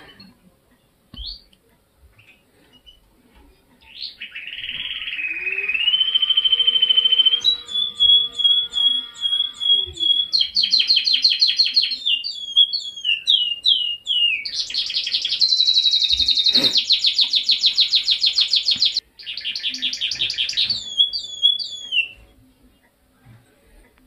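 Male canary singing a long song of rapid trills and rolls mixed with short falling notes. It starts about four seconds in, pauses briefly a few times, and stops a couple of seconds before the end.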